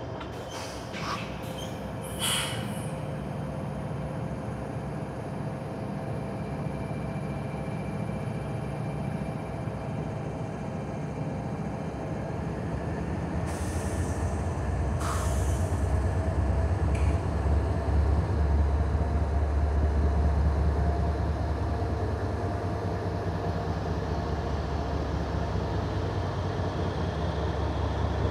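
Norfolk Southern diesel locomotives rolling slowly past, their engines making a low drone. The drone grows louder about halfway through as the second unit comes near. A few short, sharp high noises sound near the start and around the middle.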